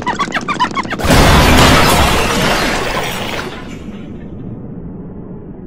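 A rapid string of short ticks and tones, then about a second in a sudden loud crash, like something shattering, that fades away over about two and a half seconds.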